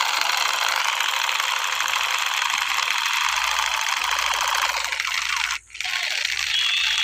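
Plastic toy space gun firing its trigger sound effect: a loud, harsh, rapid rattling buzz that stops briefly about five and a half seconds in, then starts again.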